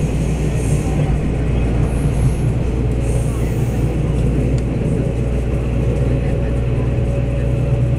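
Passenger cabin of a Taiwan Railways DR2800 diesel multiple unit power car under way: a steady low drone from the underfloor diesel engine and the wheels on the rails. A faint steady whine joins about three seconds in.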